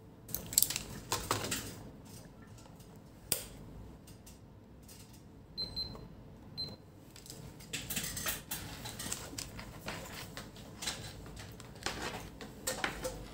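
Two short, high beeps from a handheld CD800 digital multimeter as its buttons are pressed, about a second apart, amid clicks and rustling as the meter and its test leads are handled.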